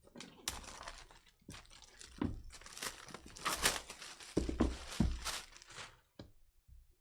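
Packaging being crinkled and torn open while opening a trading card box, with a few light knocks between the rustles.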